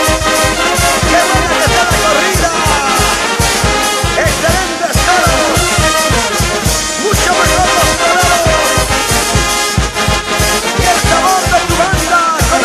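Brass band playing a tune, trumpets and trombones over a steady drum beat.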